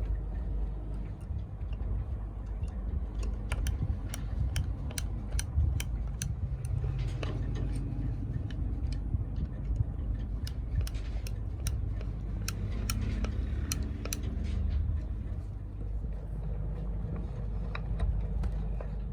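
A series of light, sharp clicks and taps, irregular and spread between about three and fifteen seconds, over a steady low rumble.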